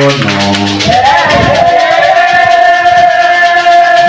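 Live church praise music, with one long note held from about a second in to the end.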